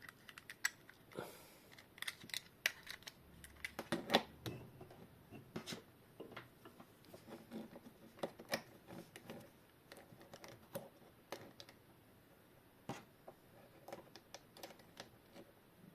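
Irregular small clicks and taps from a quartz clock movement and multimeter test leads being handled on the bench, the loudest cluster about four seconds in.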